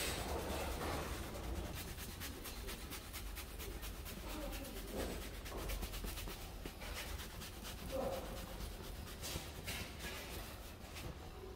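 A towel rubbing briskly up and down a horse's wet lower leg in quick, scratchy strokes, over a steady low hum.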